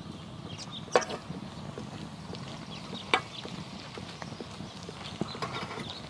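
Hot water pouring from a kettle into a steel camp pot of dry rolled oats and walnuts, a steady pour with two sharp knocks, about a second in and about three seconds in.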